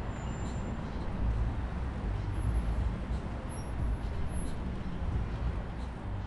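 Steady, uneven low rumble of city street traffic.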